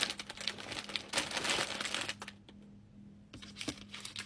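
Plastic snack wrappers crinkling as they are handled, for about two seconds, then a few light clicks and taps as packets are set down.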